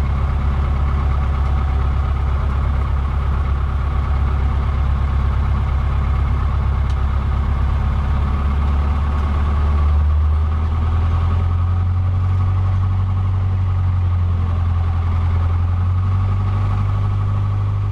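Cessna 150's four-cylinder Continental O-200 engine and propeller running at low power, heard from inside the cabin. About ten seconds in, the engine speed rises to a steady higher pitch.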